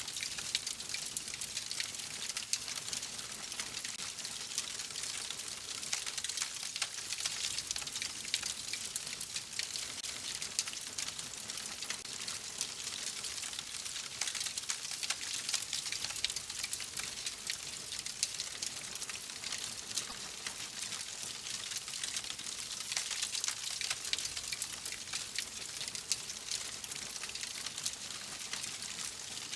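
Wood fire burning in a fireplace: a steady hiss packed with fast, continual small crackles and pops.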